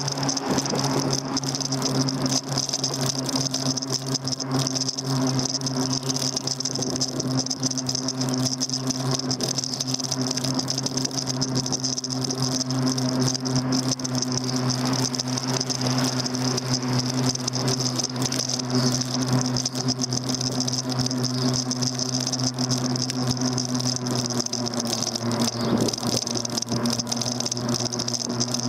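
Daymak Max e-bike riding along: a steady electric motor hum with a high whine over it and a constant rattle, picked up through the handlebar-mounted camera.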